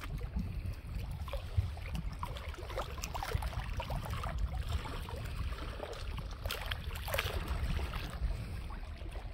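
Small waves lapping and splashing against a rocky lakeshore, with scattered small splashes, over a steady low rumble of wind on the microphone.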